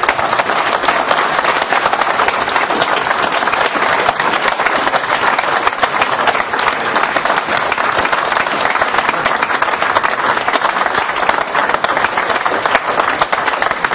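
An audience applauding: dense, even clapping at a steady level.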